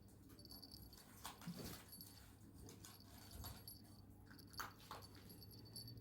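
Near silence: faint room tone with a few soft taps.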